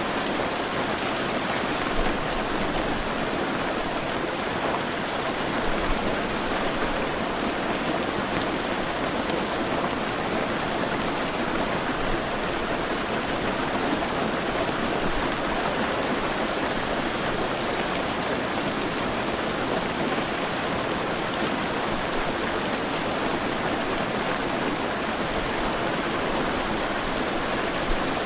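Heavy rain falling steadily, an even hiss of drops on surfaces, with a few faint low thuds about two and six seconds in.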